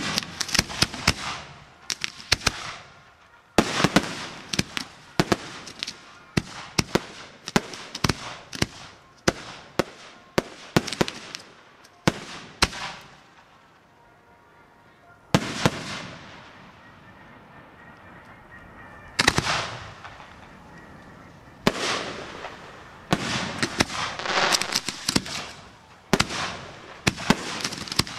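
Aerial fireworks shells and cakes firing in a display: rapid runs of sharp bangs with crackle, easing into a lull of a few seconds around the middle, then picking up again toward the end.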